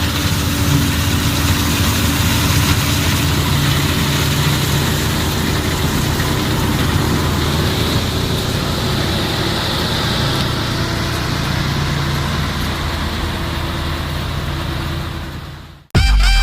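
Laverda M152 combine harvester running steadily while harvesting wheat: engine drone under a wide mechanical rush from the cutting and threshing machinery. The sound cuts off sharply near the end and music begins.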